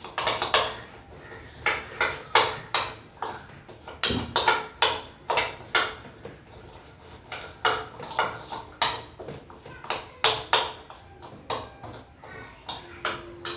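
Spoon clinking and scraping against a ceramic bowl while mixing mango pickle, in irregular sharp clinks a couple of times a second.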